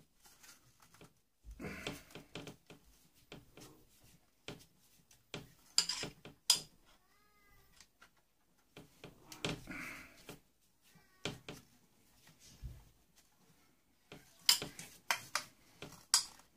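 Scattered clicks, taps and knocks of plastic and metal parts being handled as a boombox is stripped by hand, the sharpest near six seconds and in a quick cluster near the end. A few short high-pitched calls rise and fall in the middle.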